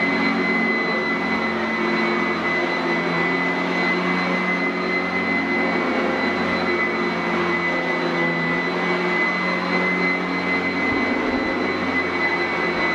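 Sanitaire SC899F commercial upright vacuum running steadily on carpet: a continuous rush of air with a steady high whine.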